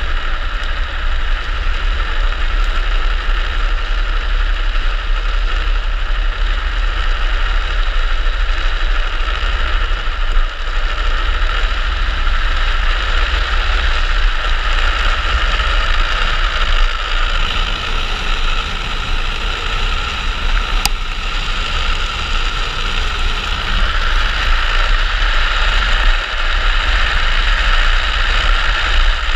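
Steady rush of wind buffeting the microphone of a rider-mounted camera, with wheel noise on asphalt, as a gravity speed trike runs downhill at speed. A single sharp click about 21 seconds in.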